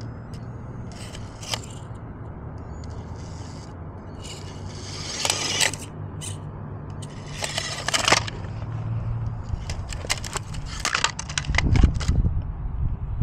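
SCX24-based 1/24-scale RC rock crawler scraping and clattering against rock, with several bursts of clicking and grinding of tyres and chassis on stone, the loudest near the end, over a steady low rumble.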